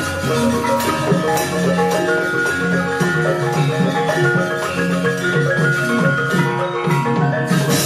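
Javanese gamelan music playing steadily: many overlapping ringing notes from mallet-struck instruments, with an occasional sharp stroke.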